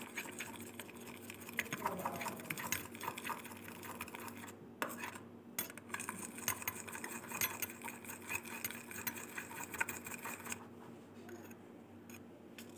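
Stirring and scraping in a metal ladle of melted sugar mixed with baking soda for dalgona candy, with quick irregular clinks and scrapes that stop shortly before the end.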